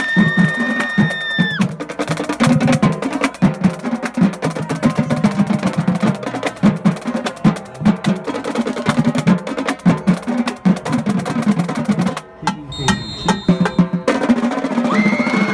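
A marching drumline plays a fast, dense cadence on snare, tenor (quad) and bass drums. A long whistle sounds over the drumming in the first second and a half. About twelve seconds in, the drums drop out for a couple of seconds of sharp stick clicks, then the drumming resumes and another long high tone comes in near the end.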